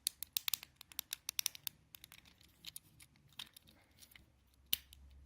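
Small plastic clicks of a fidget cube being fiddled with, as its buttons, switch and dials are worked: quick irregular clicking for the first couple of seconds, then scattered single clicks.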